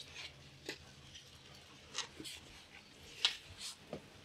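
Scattered soft knocks, taps and rustles of a large framed painting being handled and lowered by hand, the sharpest knock a little past three seconds in.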